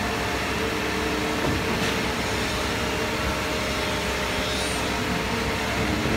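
Truck-mounted concrete pump running with a steady mechanical hum while it pumps concrete up its boom to the slab.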